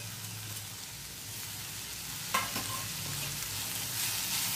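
Sliced onions, grated dry coconut and dried red chillies sizzling in a little oil in a kadai, stirred with a steel spoon while they roast for a masala paste. One metallic clink of the spoon on the pan comes a little over two seconds in, and the sizzle grows slightly louder near the end.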